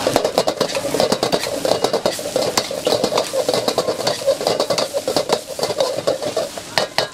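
Fried rice being stirred and tossed in a hot pan, the spatula scraping the pan in quick, irregular strokes over a steady sizzle, with a few sharper knocks near the end.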